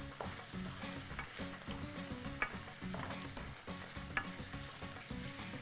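Chicken pieces frying in a pan with a little oil, sizzling steadily while being stirred, with sharp clicks of the utensil against the pan every half second or so.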